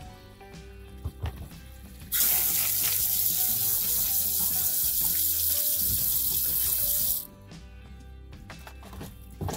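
Hose spray nozzle spraying water onto tumbled stones and ceramic media in a bowl, a loud steady hiss that starts about two seconds in and cuts off about five seconds later. It is rinsing coarse tumbling grit slurry off the stones after a tumbler cycle.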